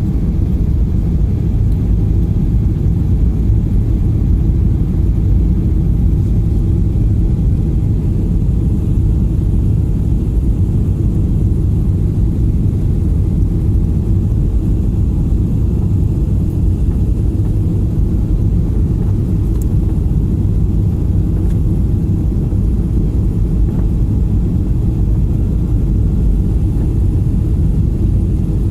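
Steady low rumble of an airliner's engines and airflow heard inside the passenger cabin in flight.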